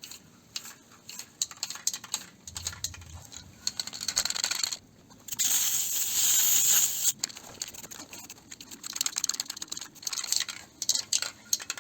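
An old aerosol can of spray primer being shaken, its mixing ball rattling and clicking. Midway it gives a steady hiss of spray for about two seconds, then is rattled again.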